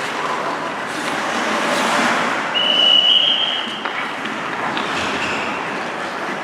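Steady noise of an indoor ice rink during hockey practice, with a whistle blown once for a little over a second about two and a half seconds in, and a fainter short tone about five seconds in.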